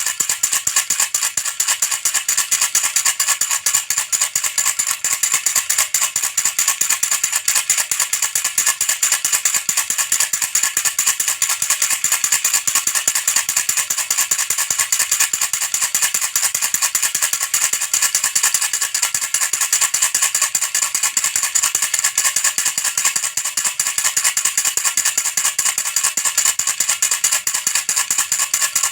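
Baby rattle shaken fast and without a break: a dense, steady, bright rattling.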